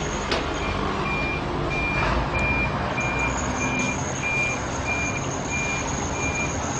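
A truck's reversing alarm beeping steadily, a short high beep a little under twice a second, starting about half a second in, over steady engine and street noise.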